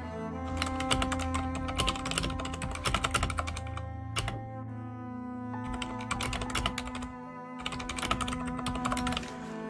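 Typing on a computer keyboard: three runs of quick key clicks with short pauses between, over soft cello background music.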